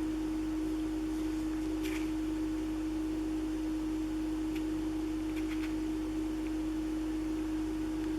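Steady single-pitch hum, unchanging throughout, with a few faint light clicks.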